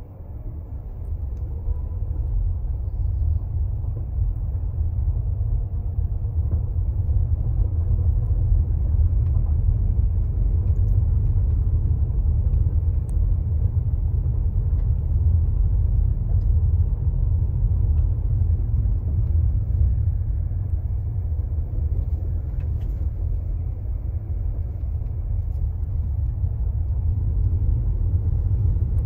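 A vehicle driving along a dirt lane, heard from inside the cab: a steady low rumble of tyres and engine, building over the first couple of seconds and then holding.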